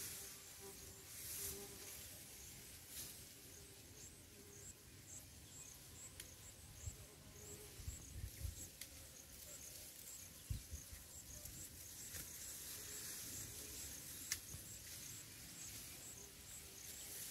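Faint field ambience with an insect chirping high and regularly, about twice a second, and a few low bumps on the microphone about halfway through.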